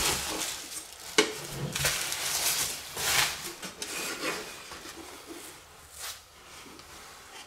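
Handling noise as a metal-cased radio is lifted and turned over among its packing: irregular rustling of bubble wrap and foam, with a sharp knock about a second in.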